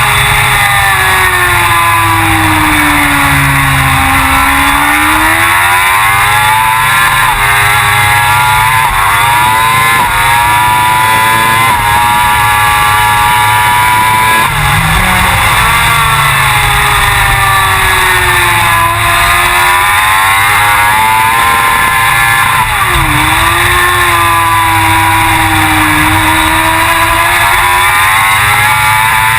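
Suzuki GSX-R1000 World Superbike's inline-four racing engine running hard and without a break. Its note drops, then climbs again several times, as the revs fall off and pick up through the corners and gear changes of a lap.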